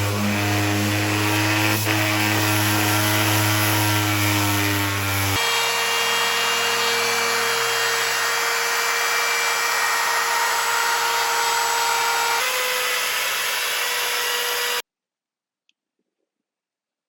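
Electric woodworking power tool running steadily, its tone shifting abruptly about five seconds in and again near twelve seconds, then cutting off suddenly about fifteen seconds in, followed by near silence.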